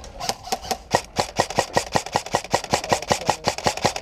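Airsoft rifle firing a fast, even string of about twenty-five shots, roughly seven a second, that stops abruptly near the end.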